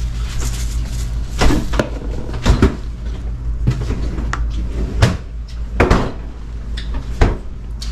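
A run of sharp knocks and clunks from kitchen handling, about nine spread unevenly over several seconds, over a steady low hum.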